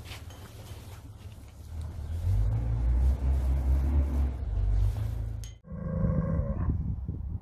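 A low rumbling noise that grows louder about two seconds in and breaks off suddenly. Then a Simmental bull bellows once, a long pitched call.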